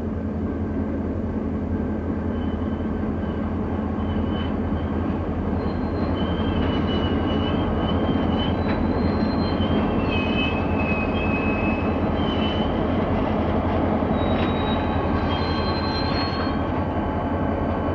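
A set of CSX diesel helper locomotives running steadily, their engines rumbling, with thin, high wheel squeals coming and going from about two seconds in until near the end.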